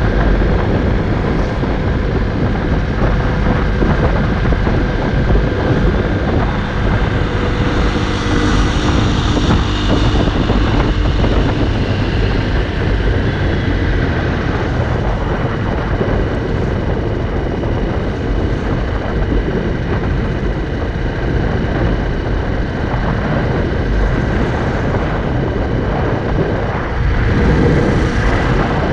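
Honda CRF250L's single-cylinder four-stroke engine running at a steady cruise, mixed with wind rush on the camera microphone.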